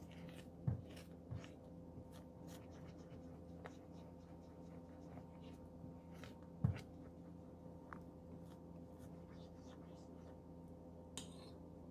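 Silicone spatula stirring a thickening chocolate mixture of sweetened condensed milk and cocoa in a stone-coated pan: faint scraping and light taps against the pan, with one sharper knock about six and a half seconds in, over a faint steady hum.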